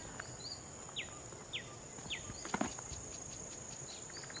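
Steady high-pitched insect drone with birds calling: a couple of short chirps, then three quick down-slurred notes about half a second apart. A single sharp knock a little past halfway is the loudest moment.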